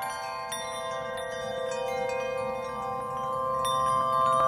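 Chime-like music: bright bell tones struck one after another, each left ringing over the others, swelling gradually louder.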